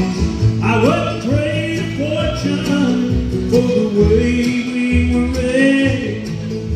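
Live bluegrass band playing: banjo, upright bass, acoustic guitar and mandolin together, the bass keeping a steady pulse under a lead melody line that comes in about half a second in.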